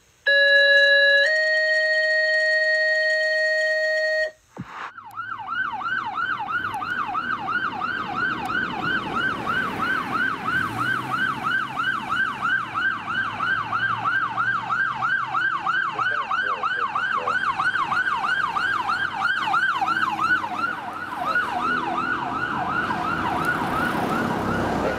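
A held synth chord that shifts once, lasting about four seconds, then the electronic siren of a Ford pickup fire utility truck sounding a fast yelp, about three sweeps a second, as the truck passes.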